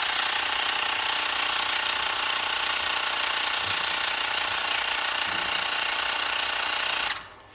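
Xiaomi Mi portable electric air compressor running steadily as it tops up a scooter tyre by about one psi, then cutting off abruptly about seven seconds in, the sign that it has reached the set pressure and shut itself off.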